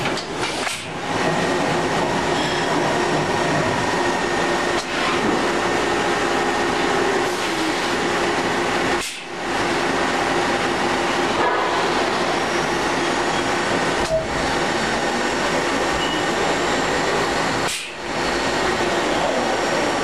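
A Haas VF-2D vertical machining center running, a steady mechanical hum with a faint whine. The noise drops out briefly about nine seconds and eighteen seconds in.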